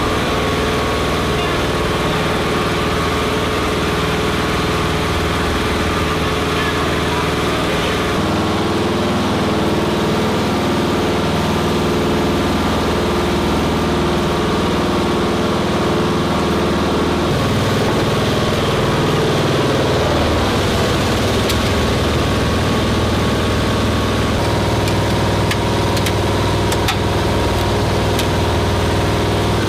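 An engine running at idle. Its steady note changes twice, about a third of the way in and again past the middle, as the engine speed shifts.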